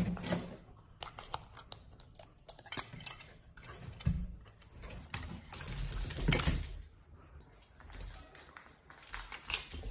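Scattered light clicks and taps with rustling as a small plastic name tag and its ring are handled and fitted to a dog's harness, with a louder rustling burst about six seconds in.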